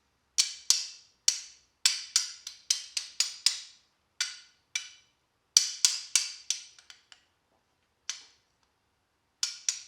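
Hammer tapping a new steel pin through a 1971 Camaro door hinge: about twenty sharp metal-on-metal strikes with a short ringing ping, in quick runs of a few blows, with a pause before the last few.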